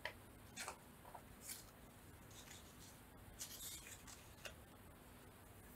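Faint rustling and light taps of paper pieces being handled, in short scattered bursts over a quiet room.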